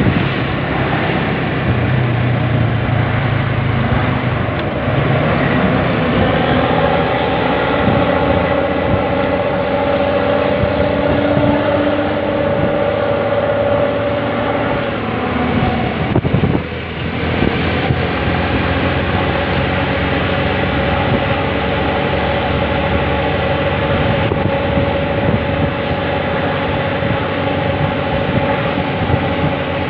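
Engine and road noise from riding close behind a coach bus in traffic. A steady droning tone holds its pitch for several seconds at a time and dips briefly about 17 seconds in.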